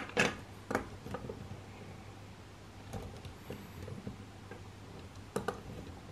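Plastic LEGO Technic parts clicking and knocking as hands handle the model: a quick cluster of clicks at the start, a few light ones around three to four seconds, and two sharp clicks about five and a half seconds in.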